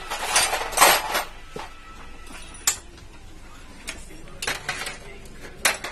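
Metal spanners and engine parts clinking and clattering during dismantling of a Hero Splendor Pro motorcycle engine: a rattling scrape in the first second, then a few separate sharp metallic clinks.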